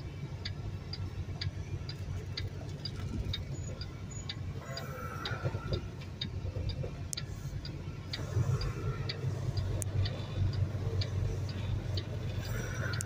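Semi truck's turn-signal flasher clicking steadily, about two clicks a second, heard inside the cab over the steady low hum of the diesel engine as the truck turns.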